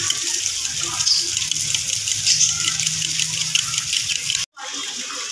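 A fork beating raw eggs in a ceramic bowl, its tines clicking quickly against the bowl, over a steady hiss. The sound drops out for a moment near the end.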